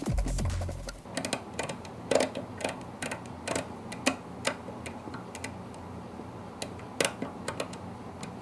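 Irregular small metallic clicks and ticks as a hex driver works inside the metal receiver of an FX DRS Tactical air rifle, turning the hammer-spring adjuster through the drilled rear adapter. Background electronic music cuts off about a second in.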